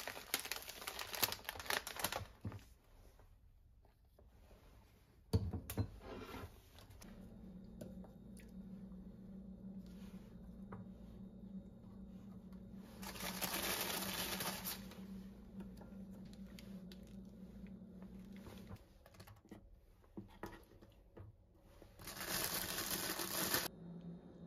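Plastic biscuit packaging crinkling and rustling in several bursts as it is handled, with one sharp knock about five seconds in. A low steady hum runs underneath through the middle.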